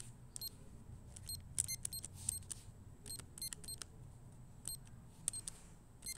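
Clusters of short, sharp clicks, irregularly spaced, over a low steady hum.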